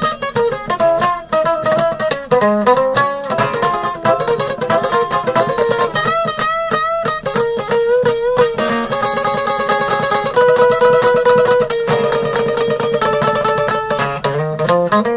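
Instrumental break of a rock and roll song: a guitar plays a lead line of quick runs, with wavering notes partway through and longer held notes in the second half.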